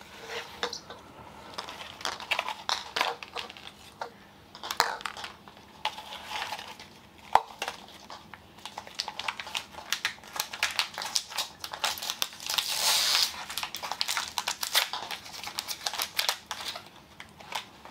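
Plastic wrapping crinkling and tearing by hand, with scattered sharp clicks, as a Zuru Mini Brands blind-ball capsule is unwrapped and opened. There is a thicker stretch of crinkling about thirteen seconds in.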